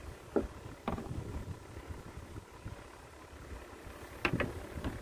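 Steady low hum of a live-bait tank's aerator air pump, with a few short sharp sounds about half a second in, at one second and again just past four seconds.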